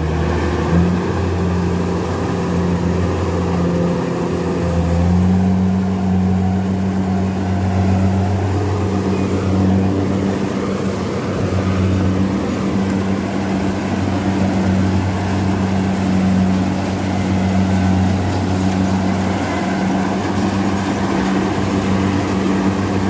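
Rice combine harvester's diesel engine running steadily under load while it cuts and threshes rice, its note shifting slightly higher about five seconds in.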